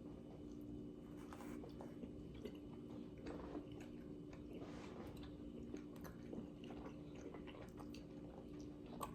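A person chewing boneless chicken wings, faint, with scattered small wet mouth clicks.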